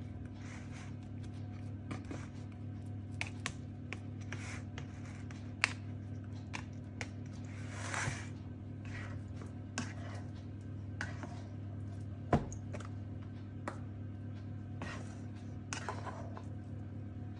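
Plastic rice paddle scooping and spreading a thick purple paste between a wok and plastic tubs: soft scrapes with scattered light taps and clicks, one sharper click past the middle, over a steady low hum.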